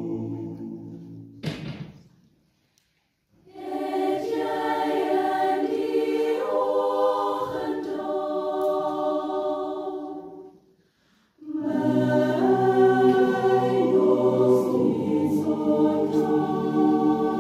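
A choir singing, breaking off into silence about two seconds in and again briefly past the middle before starting up again.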